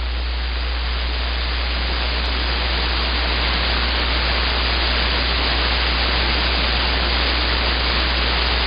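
CB radio receiver hissing with static on an open channel between transmissions, with a steady low hum underneath.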